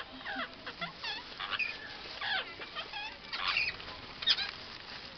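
Parrot calling in a quick run of short squawks and chirps, many sharply rising or falling in pitch.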